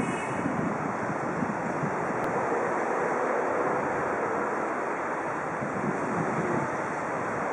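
Wind buffeting the microphone: a steady, gusty rushing noise.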